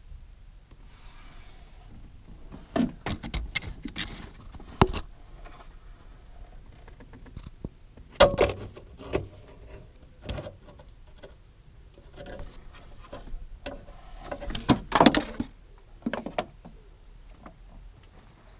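Irregular clicks, clinks and knocks of tools and parts being handled, with the loudest clusters about eight seconds in and again around fifteen seconds in.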